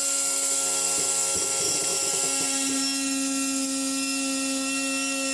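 Pneumatic straight die grinder running at high speed with a steady whine and air hiss, its bit cutting a small groove into a 3D-printed ABS plastic panel so that panel-bond adhesive will stick.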